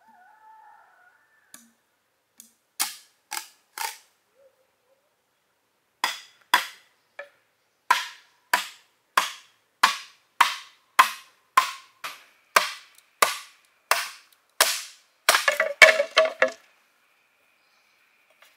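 Repeated sharp, hard strikes on bamboo, the kind made when cutting or working bamboo poles. A few scattered blows come first, then a steady run of about one and a half strikes a second, ending in a quick flurry of blows.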